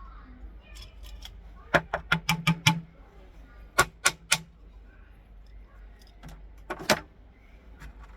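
Toy cap gun clicking sharply as its trigger is pulled again and again: a quick run of about six clicks, then three more, then a pair near the end.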